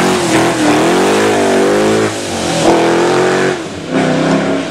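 Rally car's engine revving hard as it powers out of a hairpin and away, its pitch rising and dropping again and again through throttle lifts and gear changes.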